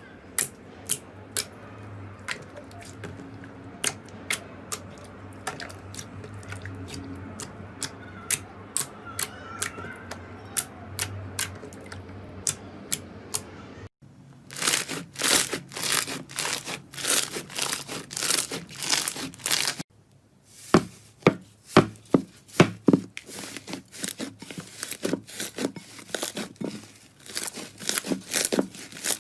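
Slime being pressed and stretched by hand, making sticky pops and clicks. The pops are sparse at first, turn into dense crackling after a cut about 14 seconds in, and pick up again after a short break near 20 seconds.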